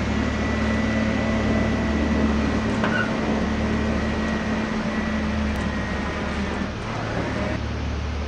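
Britten-Norman BN-2A Islander's twin piston engines and propellers running steadily, heard from inside the cabin as an even drone with a low hum and a steady tone.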